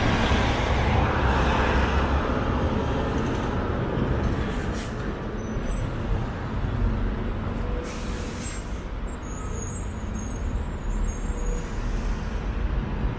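Street traffic with a heavy vehicle running close by. A hiss is loudest over the first two seconds, then eases to a steady low rumble.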